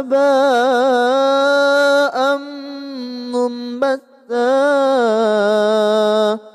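A man's voice reciting the Quran in Arabic in a melodic chanted style, drawing out a long ornamented vowel whose pitch wavers. About four seconds in there is a brief break for breath, then another long held note.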